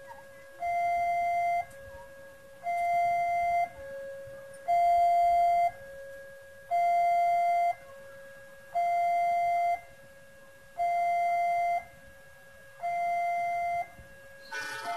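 Electronic warning alarm of a railway level crossing, alternating steadily between a louder higher note and a softer lower note, each about a second long, signalling that a train is approaching. Near the end a rushing noise comes in as the train draws near.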